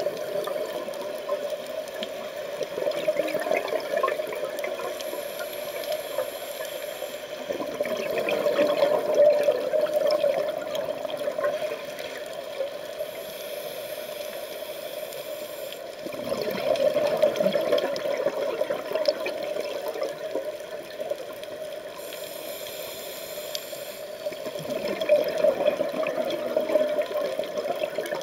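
Scuba breathing heard underwater: the steady bubbling rush of exhaled regulator bubbles, swelling into louder gurgling surges about every eight seconds with each breath out.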